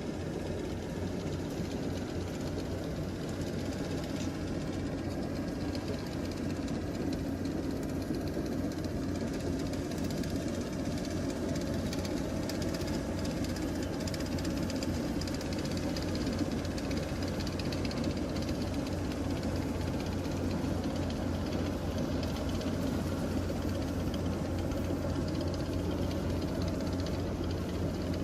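Engine of a rice harvesting machine running steadily under load, with a fast, even knocking rattle.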